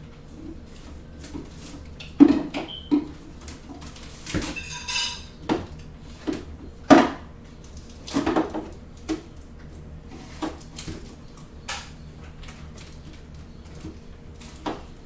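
Scattered knocks, clicks and clatter of small objects being handled and set down while an office is sorted and tidied, the loudest knocks about two seconds and seven seconds in, with a short squeak about four and a half seconds in.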